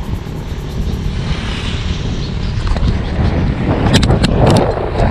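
Wind rushing over a bike-mounted camera's microphone while riding at speed. A few sharp knocks and rustles of the camera being handled come about four seconds in.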